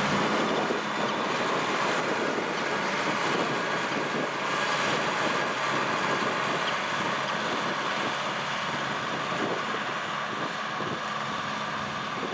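Kubota M6040SU tractor's diesel engine running steadily while working a field, easing slightly quieter toward the end.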